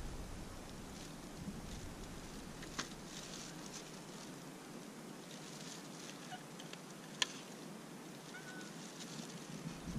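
Quiet outdoor background hiss with two sharp clicks, one a little before the middle and one past it, and a brief faint high chirp near the end.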